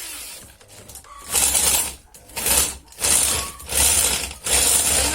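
Electric drill driving a crab grinder, grinding field crabs in five short bursts of about half a second each as the trigger is squeezed and released.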